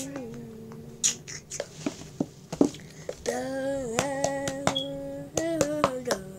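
A child humming long held notes, with sharp clicks and taps from a small plastic bottle being handled and knocked about.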